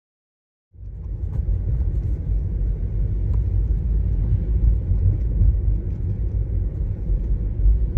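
Steady low road and tyre rumble heard inside a Tesla's cabin while driving on a wet street. There is no engine sound, since the car is electric, and a few faint ticks sit over the rumble. The sound cuts in suddenly about a second in.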